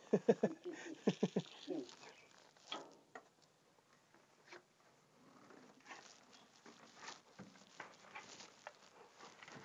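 Scuffs and scattered faint knocks as a man climbs down a metal ladder into a narrow clay shaft, with a few short vocal sounds in the first two seconds.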